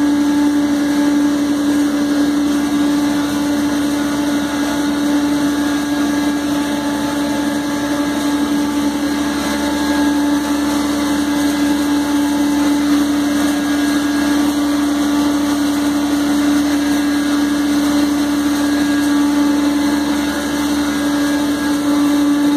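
Besan (gram flour) pulverizer running steadily at full speed, grinding: a loud, even motor hum with one strong steady tone over a dense rushing noise.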